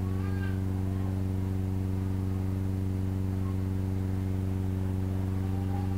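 A steady, unchanging low hum made of a stack of even tones, with no pause or change in pitch.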